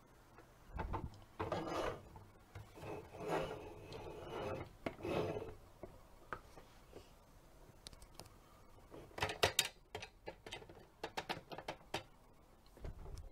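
Hard plastic parts of a Tonka toy garbage truck being handled: about four scraping rubs, then a run of quick clicks and rattles near the end as the rear hopper is worked.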